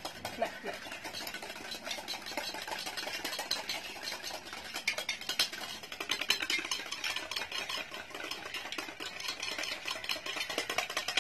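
Wire hand whisk beating instant coffee, sugar and water in a small steel bowl: a fast, steady rattle of the wires clicking against the metal. The mixture is being whipped toward a creamy foam and has not reached it yet. A spoon clinks now and then in a second steel bowl.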